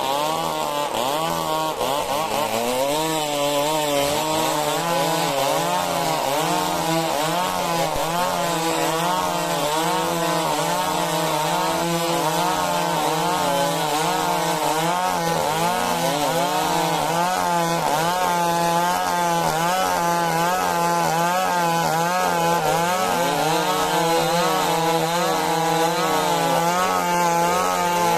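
Stihl MS 382 two-stroke chainsaw cutting lengthwise through a majau timber log, running steadily under load with its engine pitch wavering up and down as the chain bites.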